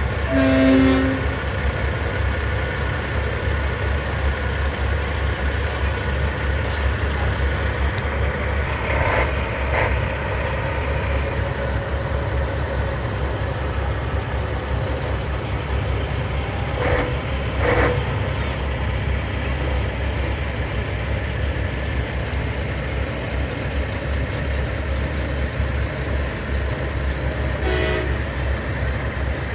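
Heavy trucks rolling by with a steady low engine rumble, their horns sounding several times: a loud blast right at the start, another toot about nine seconds in, two short toots around seventeen seconds, and a faint one near the end.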